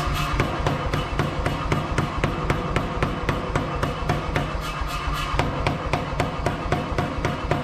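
Power hammer hammering red-hot steel held in tongs: a rapid, even run of blows, about five a second, drawing out the bar to add length.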